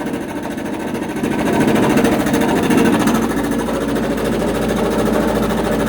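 Sanborn air compressor's piston pump running, a fast, even mechanical chatter; a low hum joins about three seconds in.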